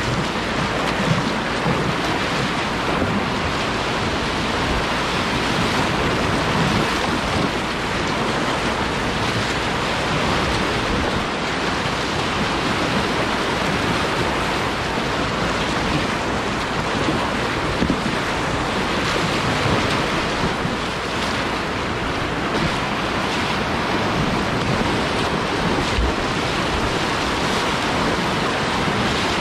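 Whitewater rapids on a river in high water, a steady, even rush of water with no breaks.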